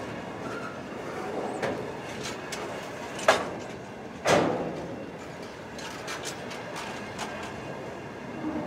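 Container wagons of a freight train rolling past close by: a steady rumble of wheels on rail with scattered clicks, and two loud sharp bangs about three and four seconds in, the second ringing on briefly.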